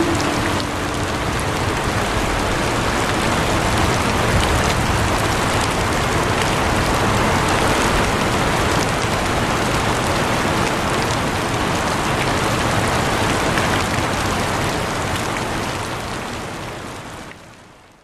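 Steady heavy rain, a dense hiss with scattered drop ticks, fading out over the last two or three seconds.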